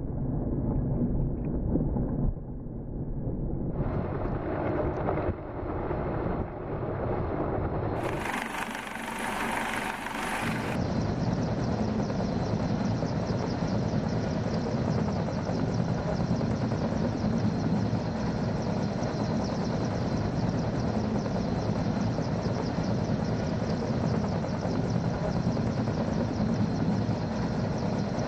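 Coast Guard MH-65 Dolphin helicopter hovering close overhead: a steady, dense rotor and turbine noise with a fast, even beat of the rotor blades. In the first several seconds the sound changes abruptly a few times at edit cuts, with more distant, windier helicopter noise.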